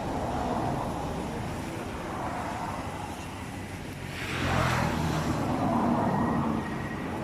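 Street traffic: vehicle engines running, with one vehicle passing close, louder for a few seconds starting about four seconds in.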